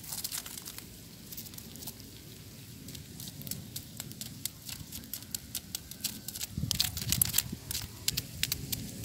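Dry crackling and scraping as a bamboo stick scrapes the charred, crisp scales off a snakehead fish roasted in burning straw. The crackles thicken into a louder cluster about two-thirds of the way through.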